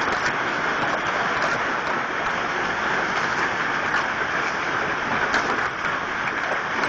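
Heavy hailstorm: a dense, steady hiss of rain and hail hitting the ground, with sharp ticks of separate hailstones striking scattered all through.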